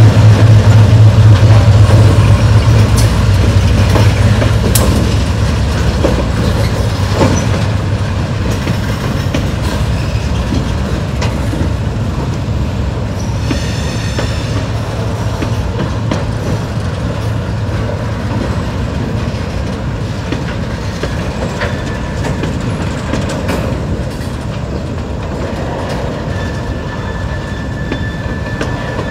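Freight cars rolling slowly past behind an EMD MP15AC switcher. The locomotive's diesel engine hum fades over the first few seconds, leaving the rumble and clickety-clack of boxcar and tank-car wheels over the rails. Brief wheel squeals come about halfway through and again near the end.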